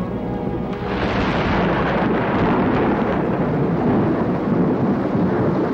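Atomic bomb blast as laid on a newsreel soundtrack: a dense, continuous rumble that swells sharply about a second in.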